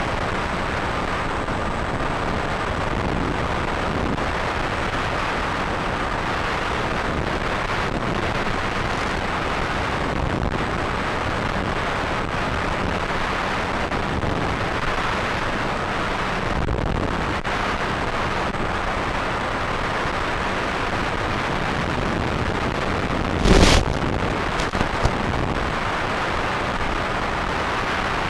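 Steady rushing noise on an onboard FPV camera's microphone, with one loud thump about 23 seconds in and a couple of smaller knocks just after.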